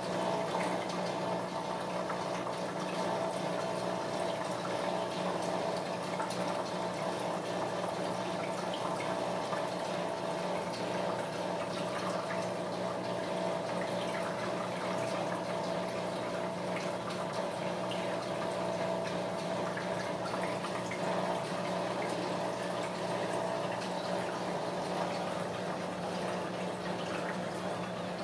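A steady hiss with a low, even hum under it, unchanging throughout.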